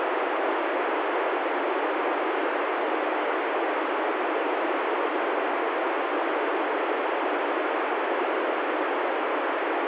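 Steady FM receiver hiss from an ICOM ID-51 handheld transceiver tuned to the ISS downlink on 145.795 MHz, squelch open and no voice left on the channel: the ISS signal has faded out at the end of the pass.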